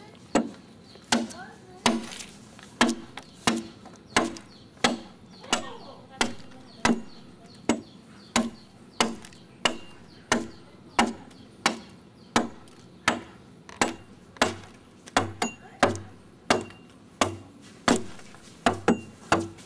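Adze chopping into the green wood of a dugout canoe hull as it is hollowed out: sharp, steady strikes at about one and a half per second.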